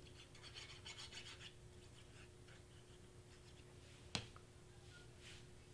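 Faint rustling and rubbing of cardstock pieces handled on a cutting mat, with one sharp click about four seconds in.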